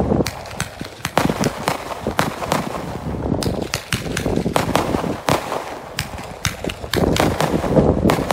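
A 36-shot consumer fireworks cake of red and white strobing peonies firing shot after shot. Loud bangs from the shells and breaks mix with many sharp pops, several a second, at uneven intervals, and they grow denser near the end.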